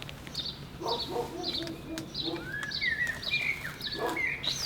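A bird chirping, a short high note repeated about twice a second, with a few whistled rising and falling notes in the second half.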